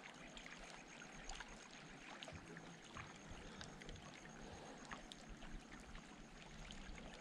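Very faint water at the surface, small drips and trickles with scattered light ticks, as the water settles after a fish is released; close to silence.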